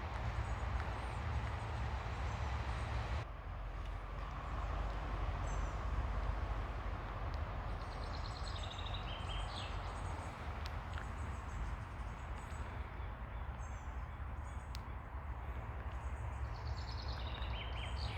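Steady wash of ocean waves on a beach, with a small bird chirping over it a few times in short, quick runs of high notes. The surf sound changes abruptly about three seconds in.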